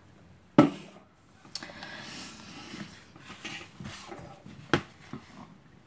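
Drink cans being handled and set down on a table: a sharp knock about half a second in, faint handling and shuffling sounds, then another knock near the end.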